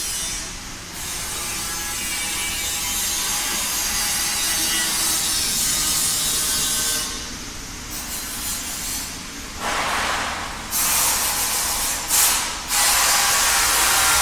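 Factory machinery running with a continuous mechanical rubbing, working noise. It shifts in character a few times and is loudest over the last second or two.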